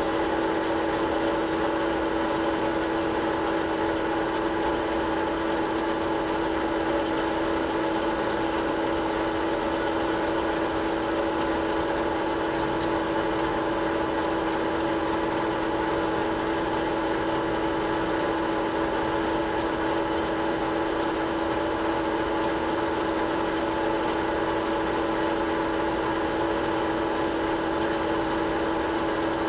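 Metal lathe running at a steady speed, a steady hum with one strong tone, as a small boring bar cuts the bolt-nose recess into a rifle barrel's threaded tenon.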